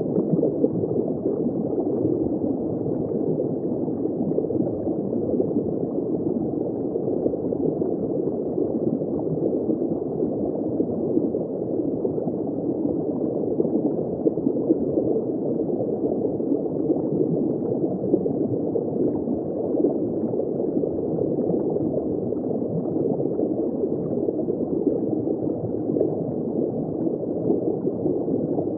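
Underwater ambience heard from just below the surface: continuous dense bubbling and gurgling, muffled, with almost nothing above a low-mid rumble.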